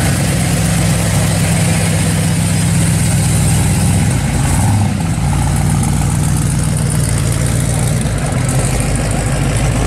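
Chevrolet Chevelle SS's V8 engine idling as the car rolls slowly past, its exhaust a steady low note.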